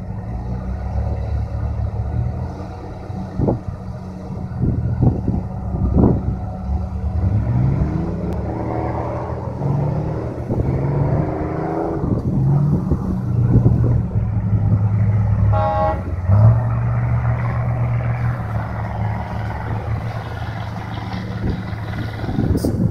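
Unimog 404 S trial truck's engine running under load as it crawls through a rough dirt section, its pitch rising and falling with throttle between about a third and halfway through, with a few sharp knocks early on. A brief toot about two-thirds of the way through.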